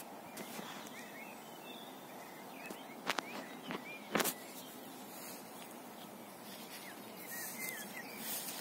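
Distant birds chirping in short scattered calls over a steady background hiss, with a few sharp clicks about three and four seconds in that are the loudest sounds.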